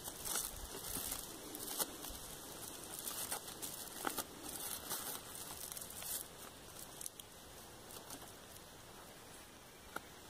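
Thin plastic grafting tape crinkling and rustling as it is wound and pulled tight around a graft on a seedling stem, with a few small clicks. It softens after about six seconds.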